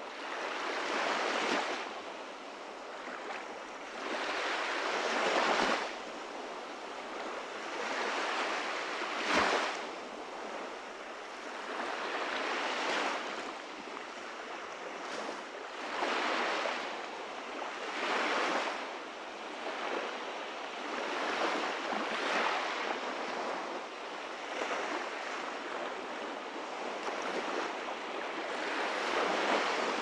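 Small waves lapping and washing up onto a sandy beach. Each wash swells and fades, with a new one every three or four seconds.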